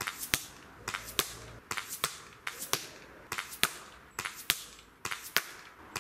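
PP700 SA PCP air pistol shots with pellets hitting a cardboard-box target: a quick series of sharp cracks in pairs, a fainter crack followed about a third of a second later by a louder one, a new pair coming under a second apart.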